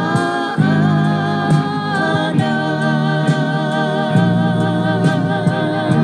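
Tongan gospel song played by a band: long held sung notes with vibrato over a steady bass line.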